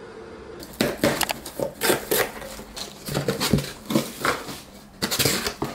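Cardboard delivery box being opened and unpacked: flaps and packaging rustling and crackling in a quick, irregular run of sharp sounds, starting about a second in.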